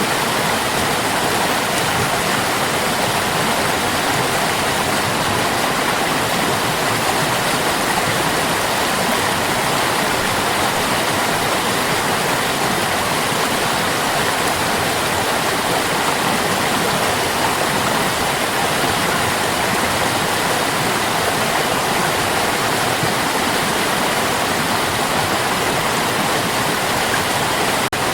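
Running water of a stream, a loud, steady rush that holds constant throughout.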